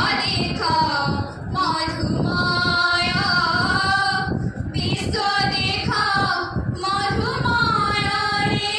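Young women singing an Odia song together into a microphone, amplified through loudspeakers in a reverberant hall. The notes are held long with a gentle wavering in pitch, and the phrases are broken by short breaths every couple of seconds.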